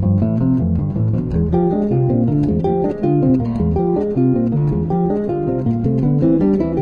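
Background music of plucked guitar playing a quick run of notes over a bass line.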